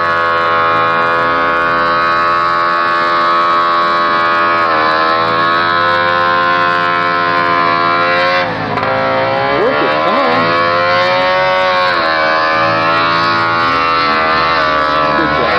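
The JLO 440 two-stroke twin of an Attex amphibious ATV running hard under load in deep mud. About halfway through its pitch sags briefly, then it revs back up and holds a steady high drone.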